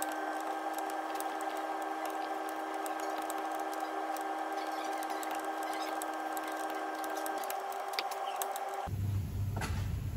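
Rapid, irregular clicking of an 18 mm ratchet spanner undoing the ball joint nut on a lower suspension arm, over a steady hum of several tones. Near the end the sound changes abruptly and a low rumble comes in.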